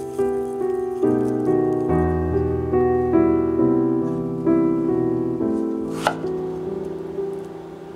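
Background piano music playing a gentle melody with chords. About six seconds in, a kitchen knife chops once through a vegetable onto a wooden cutting board.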